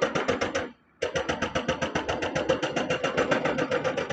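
Hyundai wheeled excavator's diesel engine being cranked by its starter motor, a fast even chugging of about ten pulses a second without the engine catching. It stops briefly just before one second in, then cranks again.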